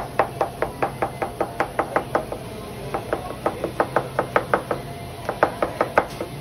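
Knife chopping finely on a cutting board, about five quick strokes a second in three runs with short pauses between.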